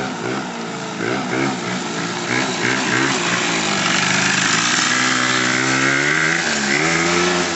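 Small motor scooter engine revved in quick up-and-down swells, then held at high revs as the scooter is ridden, easing off briefly and picking up again near the end.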